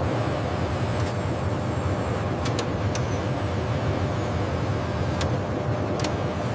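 Steady low mechanical rumble and hum with a few sharp clicks, about two and a half, three, five and six seconds in.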